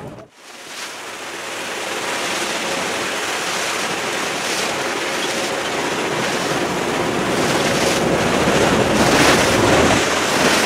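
Steady rush of open-sea water and wind, with wind buffeting the microphone; it swells in over the first two seconds and then holds steady.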